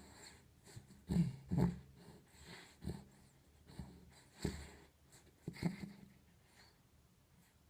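A dog snoring in its sleep: about six short, irregular snores roughly a second apart, two of them close together early on. The snores die away over the last couple of seconds.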